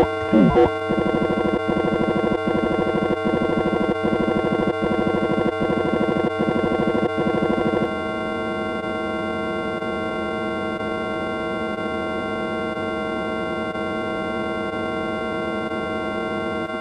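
Synthesized electronic sound effect: many steady tones stacked together, pulsing rapidly for the first eight seconds or so, then settling into a dense, steady drone.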